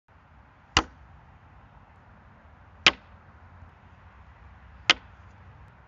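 Three sharp thwacks, evenly spaced about two seconds apart, over a faint steady hiss.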